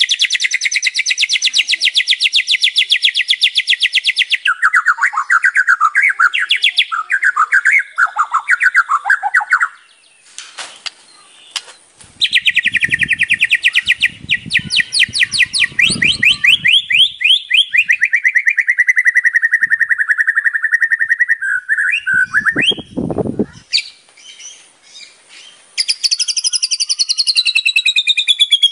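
White-rumped shama (murai batu) singing a loud, varied song: very fast rattling trills of high notes, lower warbled phrases and a long falling whistle, with a pause about ten seconds in before the trills start again.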